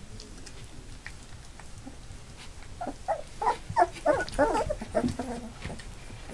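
Black Labrador puppies, nearly three weeks old, whimpering and squealing in a run of short high cries that starts about three seconds in and lasts a couple of seconds, with faint light ticks and rustles before it.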